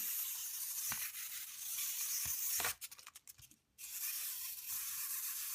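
Wind-up toy's clockwork spring mechanism running with a high, rasping whir and a few light knocks as the toy flips. The whir breaks off for about a second midway, then starts again.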